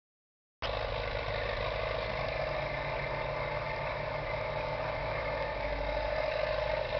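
1953 Massey Ferguson tractor engine running steadily, with a low rumble and an even hum. The sound cuts in about half a second in and grows slightly louder near the end.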